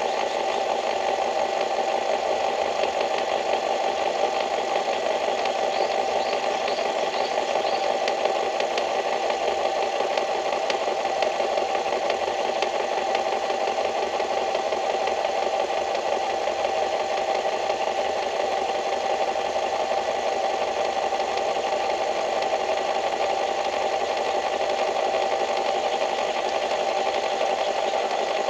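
A small engine or machine running steadily, with a strong humming tone and a fast, even rattle, plus a few short high chirps about six to eight seconds in.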